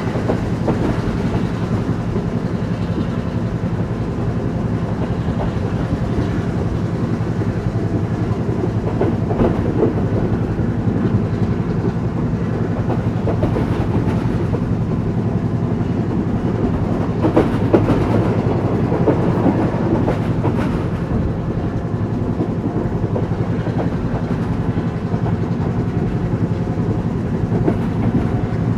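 Express train hauled by a Class M6 diesel locomotive running along the line, heard from inside a passenger coach: a steady rumble of wheels on rail with rhythmic clicks over rail joints, and louder rattles now and then.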